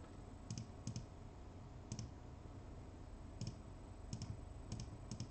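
Faint computer mouse clicks, about seven spaced irregularly, each a quick double click of press and release.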